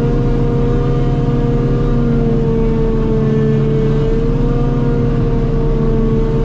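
Self-propelled forage harvester running steadily under load while chopping grass silage: a constant engine drone with a steady whine from the cutterhead and drive on top.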